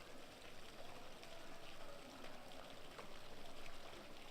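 Faint, steady running water, an even hiss with a few small ticks.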